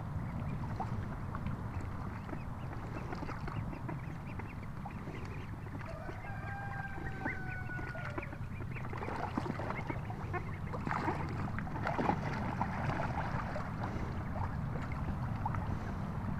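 Young Embden goslings and Welsh Harlequin ducklings dabbling and splashing in pond water, with soft calls and one drawn-out call about six seconds in. A low steady rumble runs underneath, and the splashing grows busier near the middle.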